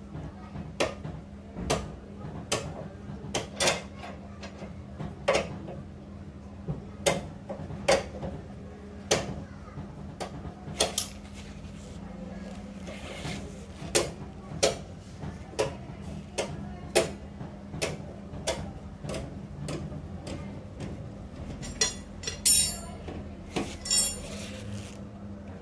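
Metal clinks and knocks from hand tools, repeated about once a second over a steady low hum, with a quick run of sharper clinking near the end.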